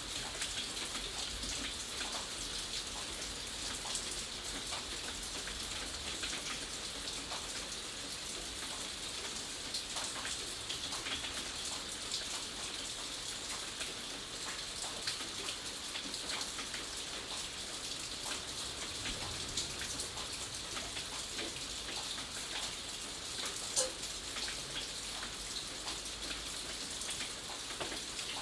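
Steady rain falling, with many individual drops pattering and ticking on a surface, and one sharper, louder drip about 24 seconds in.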